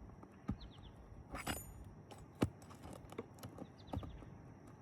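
A metal tool working the last roofing nail out from under a composition shingle: scattered sharp clicks and knocks, about half a dozen, the loudest about halfway through and one a little after a second in with a brief metallic ring. A bird chirps faintly twice.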